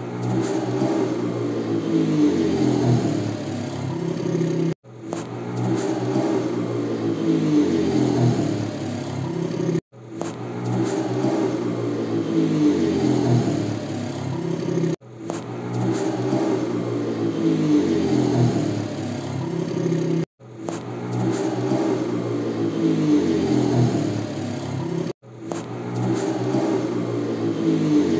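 Motorcycle engine revving up and down. It is a short sound clip looped about every five seconds, with a brief cut to silence between repeats.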